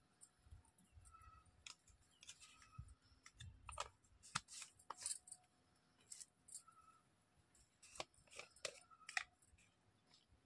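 Faint, scattered clicks and taps of a spoon against a steel pot and plastic spice jars being handled and opened, with a cluster of sharper clicks about four seconds in and another about eight seconds in.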